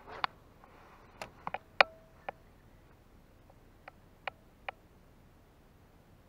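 Sharp, irregular clicks and ticks from handling a Daiwa spinning rod and reel around a cast, about eight in all, the loudest about two seconds in.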